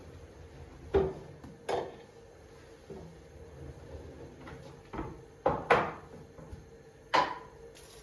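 Kitchen handling knocks: about six sharp wooden-sounding knocks and clacks, two close together in the first two seconds and a quick cluster of three a little past the middle, like cupboard doors or drawers being opened and shut.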